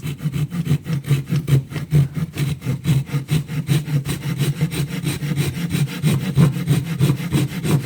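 Rapid hand-sawing through wood with a Japanese pull-saw-style pruning blade, a thin-kerf reciprocating saw blade held in a Bosch blade holder handle, at about four to five strokes a second. The teeth are so aggressive that the cut is hard to control by hand.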